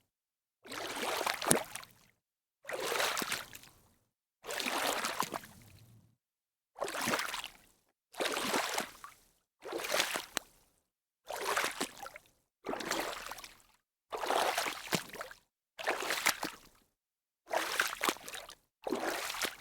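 Water splashing: about a dozen separate splashes, one after another, each about a second long with a sudden start and a fading tail, with silence between them.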